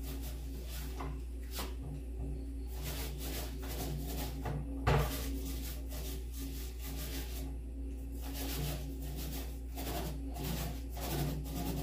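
Paintbrush brushing paint onto a wooden door in repeated short scraping strokes, with one louder knock about five seconds in. A steady low hum runs underneath.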